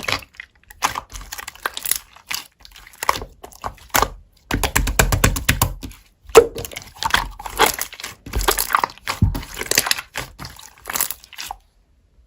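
Clay slime being squished and pressed by hand, giving irregular crackly clicks and pops, with a quick run of rapid clicking about five seconds in.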